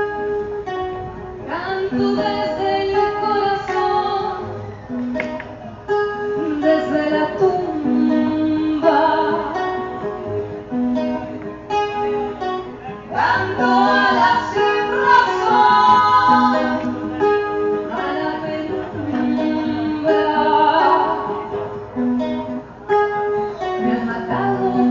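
Live acoustic guitar playing with a woman singing a melody over it.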